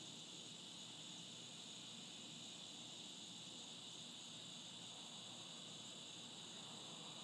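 Near silence: a faint, steady high-pitched hiss with no distinct events.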